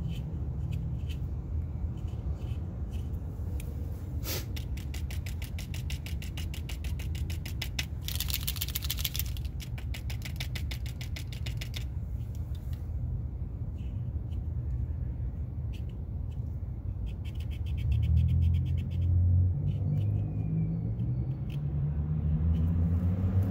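Two spells of fast, evenly paced scratchy ticking, from about 4 to 12 seconds and again around 17 to 19 seconds, as the outer tie rod is marked with a marker to record its position before removal. Under it runs a steady low rumble, with a vehicle engine swelling and rising in pitch near the end.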